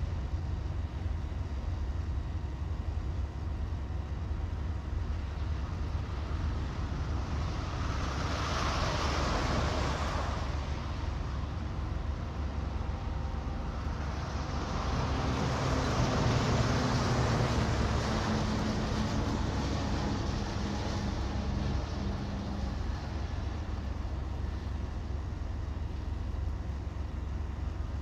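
Recorded vehicle sound effect: a steady low rumble with two passing swells of noise, one about 8 seconds in and a longer one about 15 seconds in. The second swell carries a steady engine hum that fades out a few seconds later.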